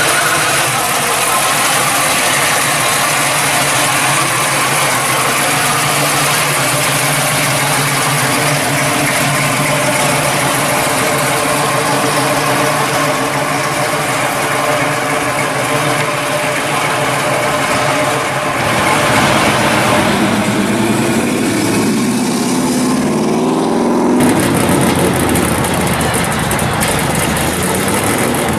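A Chevrolet Nova's V8 rumbling at low speed as it drives off, its engine pitch rising as it is revved briefly near the two-thirds point. About 24 s in, the sound cuts abruptly to a C3 Corvette's V8 idling steadily with a deeper note.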